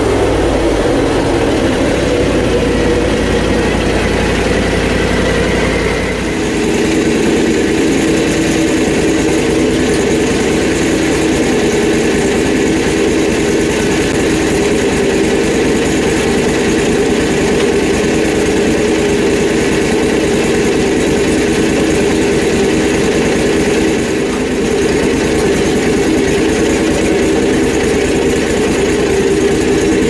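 Gasoline engine of a portable bandsaw mill running steadily. About six seconds in its note changes and it settles into an even idle.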